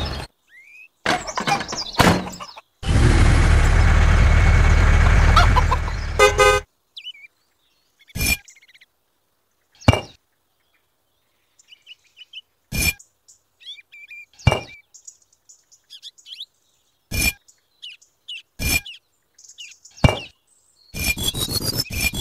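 A vehicle engine runs steadily for about four seconds and ends with a short horn toot. After that, tiny clay bricks clink sharply one at a time as they are stacked by hand, with a quick flurry of clinks near the end.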